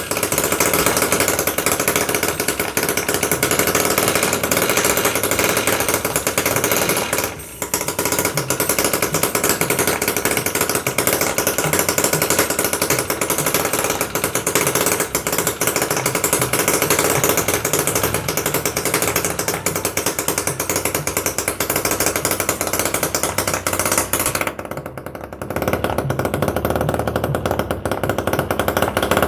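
Small two-stroke engine running hard with a rapid buzzing firing rhythm. The sound drops out briefly twice, about a third of the way in and again near the end.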